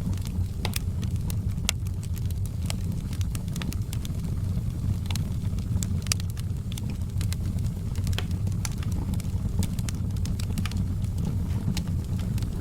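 Wood fire crackling: scattered, irregular sharp snaps and pops over a steady low rumble.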